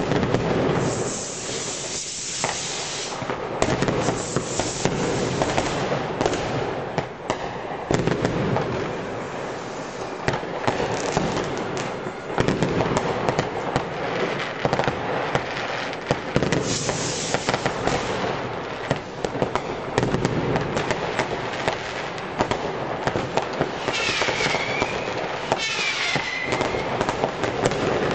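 Dense New Year's Eve barrage of many fireworks and firecrackers going off all around: countless overlapping bangs and crackles with no let-up, and two short whistles near the end.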